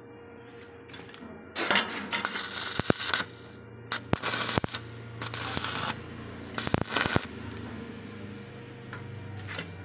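Bursts of scraping and rustling, most of them in the first few seconds, with a few sharp clicks and knocks scattered through, over a faint low steady hum.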